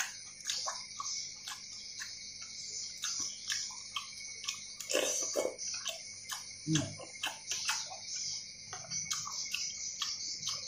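Close-up eating sounds from a bowl of noodle soup with meatballs: wet chewing and lip smacks as many short clicks, with louder slurps of broth about five seconds in and near seven seconds. A steady high hiss and thin tone run underneath.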